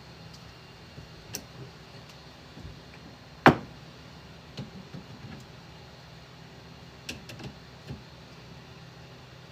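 Scattered clicks and light knocks of objects being handled, with one sharp knock about three and a half seconds in and a quick cluster of clicks near the seven-second mark, over a steady low hum.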